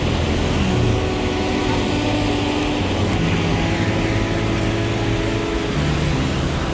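Road traffic passing on a rain-soaked city street: a steady hiss of tyres on wet asphalt. Under it runs soft background music of slow held chords.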